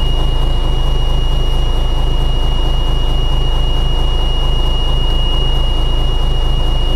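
Cummins 855 inline-six diesel of an M923 5-ton truck idling steadily just after a cold start, heard from inside the cab. A steady high-pitched tone sounds over the engine throughout.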